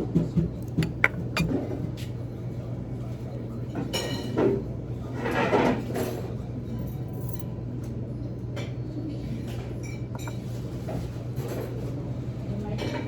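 Dining-room background: a steady low hum, with a few sharp clinks of tableware in the first second and a half and muffled voices a few seconds in.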